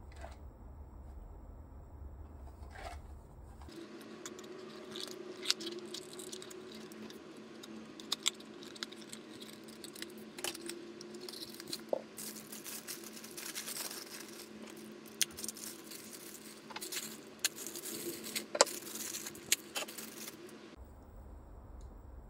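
A cardboard blind box being opened and a clear plastic bag of small plastic figure parts crinkling and rustling as it is opened, with scattered sharp clicks and taps. The crinkling is densest in the second half.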